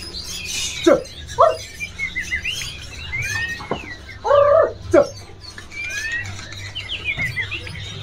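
Many caged birds chirping together in short high notes, with a few louder, lower calls: two about a second in, and two more a little past the middle, one of them longer.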